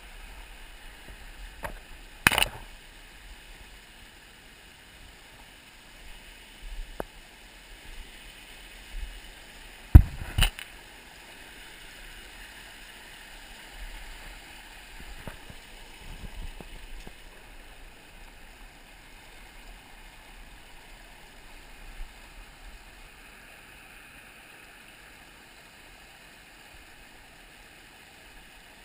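Small rocky brook running steadily over stones, a continuous rush of water. A few sharp knocks cut through it, the loudest about 10 seconds in, with another pair about 2 seconds in.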